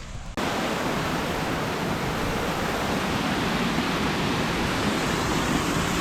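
Waterfall: a steady rush of falling water heard up close, starting suddenly about half a second in.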